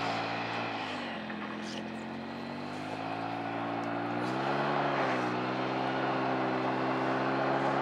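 A vehicle engine running steadily, its pitch dipping about a second in and rising again around four to five seconds in as the throttle changes.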